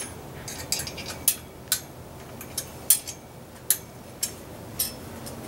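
Irregular sharp metallic clicks and clinks, about ten of them, as the halo antenna's mounting bracket hardware is tightened down on the metal mast.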